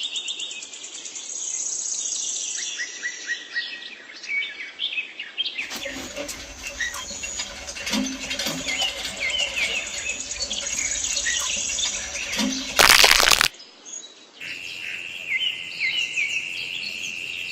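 Songbirds chirping and calling, with many short high chirps and trills overlapping. About thirteen seconds in, a brief loud rush of noise cuts across them.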